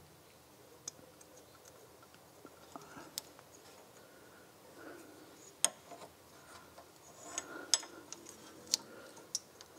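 Scattered light clicks and taps of small metal parts, with faint handling noise, as the handbrake cable end is worked into the parking-brake lever behind a BMW Z3 rear wheel hub.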